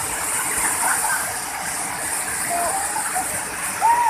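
Waterfall rushing steadily. A few short high-pitched calls sound over it, the loudest an arching call just before the end.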